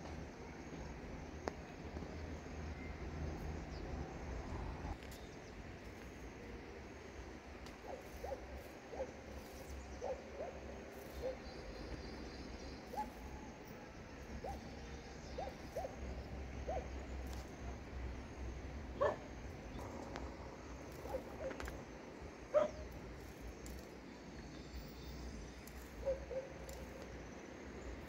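A bird's short, low whistled notes, given singly and in small irregular runs, a few with a quick upward flick, over a steady low rumble.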